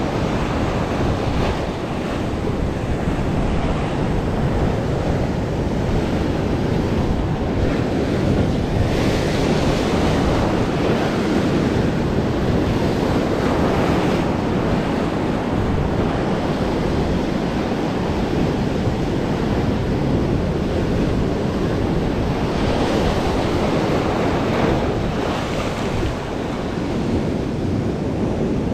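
Sea surf breaking and washing over shoreline rocks, with wind buffeting the microphone. The rush of water swells brighter several times as waves break.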